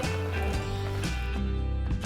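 Background music with plucked string notes over a steady bass.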